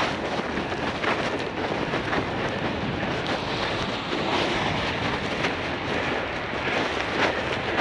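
Bicycle tyres rolling over fresh snow: a steady rushing noise with frequent short crunches and rattles, mixed with wind buffeting the microphone.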